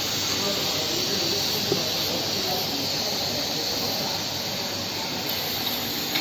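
MSZC-80 automatic hot foil stamping machine running, a steady mechanical hiss and hum, with one short click about two seconds in.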